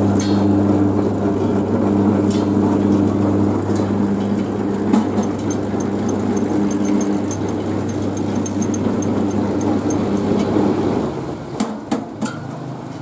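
Electric motor of a sugarcane juice press running steadily with a constant hum, a rough crushing noise on top as peeled cane stalks are fed through its rollers. The machine shuts off about eleven seconds in, followed by a few sharp clicks.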